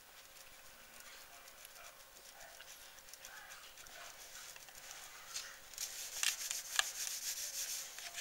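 Wax crayon scratching back and forth on a coloring book page. It is faint at first and grows louder over the last few seconds, with a few sharper scratches or taps.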